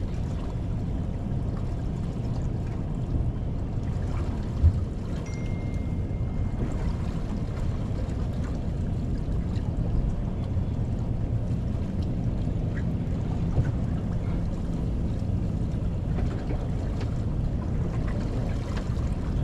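Steady low rumble of water and wind around a small boat's hull, with a single sharp knock about five seconds in.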